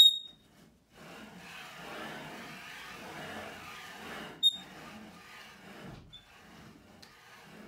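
Plywood carriage of a homemade router copy carver pushed by hand along its steel guide rods: a steady sliding, rubbing noise. Sharp metallic clicks come at the very start, the loudest sound, and again about four and a half seconds in.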